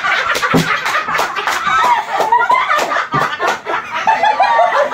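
A group of people laughing hard together, several voices at once, with a number of sharp smacks mixed in.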